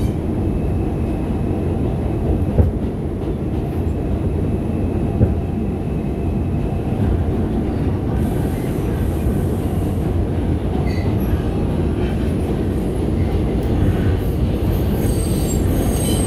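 Bombardier R142 subway car running along the track, a steady rumble of wheels on rail, with two sharp knocks a few seconds apart early on.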